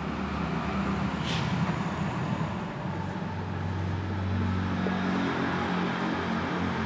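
Steady low background hum, with a short soft hiss about a second in.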